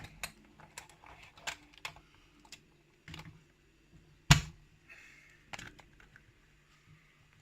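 Small, irregular clicks and taps of a padlock and its key being handled on a bench, with one sharper knock about four seconds in.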